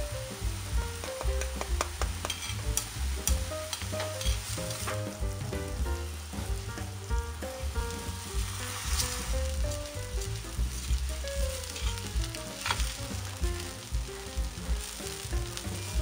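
Chopped onion frying and sizzling in butter in a metal pan, with clicks of stirring and scraping. About halfway through, a spill of drained rice is poured in and the sizzling goes on as it is stirred, over soft background music.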